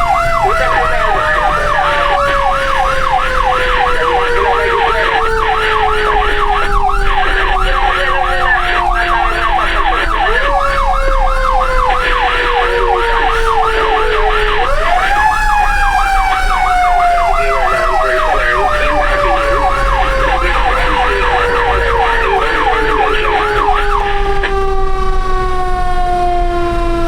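Two fire truck sirens sounding together. One is a slowly falling mechanical wail that is wound back up twice partway through, the second time higher. Over it, an electronic siren yelps rapidly up and down, then stops near the end.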